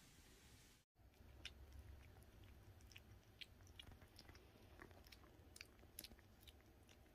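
Young kitten eating soft food from a small dish: faint, irregular wet chewing and smacking clicks.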